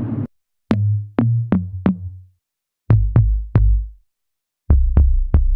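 reFX Nexus 4 'Steam Drum 03' synth drum preset played in short phrases of sharp, low-pitched hits: four hits, a pause, three hits, a pause, then three more.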